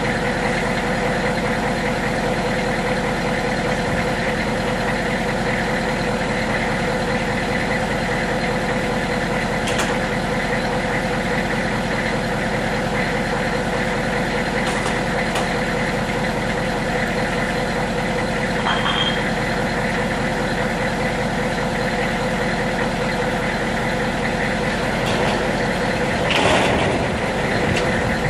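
AM General Humvee's 6.5-litre V8 diesel idling steadily after a cold start. A brief clatter near the end as a roll-up storage-unit door is pulled shut.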